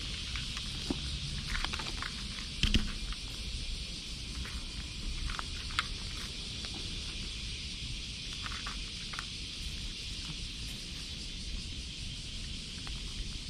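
Black-and-white stray cat crunching dry cat food, with scattered small crunches and clicks and a louder knock about three seconds in, over a steady outdoor hiss.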